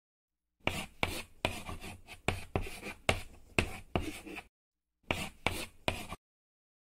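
Handwriting sound effect: a run of short, quick pen strokes for about four seconds, a brief pause, then three more strokes.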